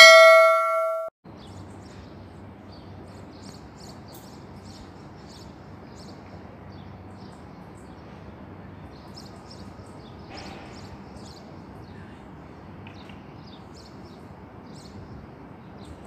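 A bright chime rings and fades over about the first second. After that, small birds chirp in short, scattered bursts over a steady low city hum.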